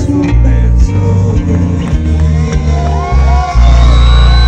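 Live band playing loud through a large outdoor PA with heavy bass, landing on a held final chord about three and a half seconds in, while people in the crowd whoop and shout.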